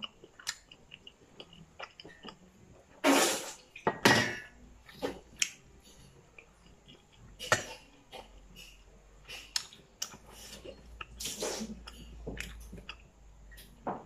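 Someone eating steamed momo dumplings by hand at close range: chewing and small mouth clicks, light taps on a steel plate and bowl, and a few short, louder hissing sounds from the mouth.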